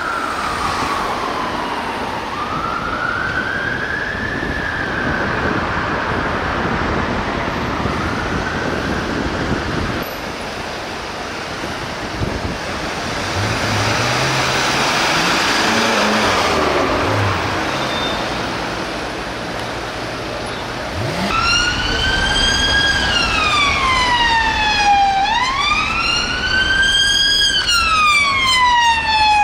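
Fire engine siren wailing slowly up and down as it moves off, fading over the first several seconds. A car engine then swells and revs in passing traffic. After about 21 s a police car's siren starts up close, wailing in long rising and falling sweeps.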